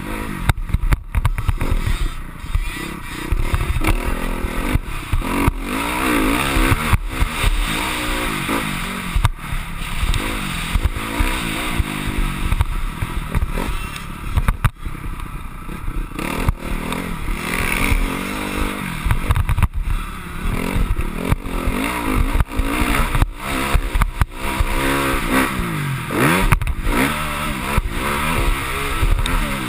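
Honda CRF250R motocross bike's single-cylinder four-stroke engine revving up and falling back again and again as it is ridden hard through the gears. Wind noise and short rattles and knocks from the bike run underneath.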